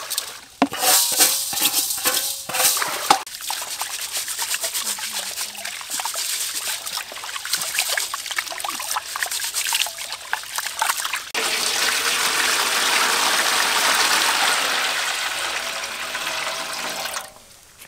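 Rice being washed by hand in water in a stainless steel basin: grains tipped in, then swished and rubbed with splashing. About two-thirds of the way in this gives way to a steady pouring stream as the cloudy rinse water is drained off, stopping shortly before the end.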